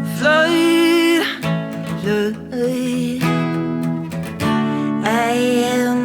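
Indie rock trio playing live: strummed guitar over a sustained bass line, with held notes that slide up in pitch several times.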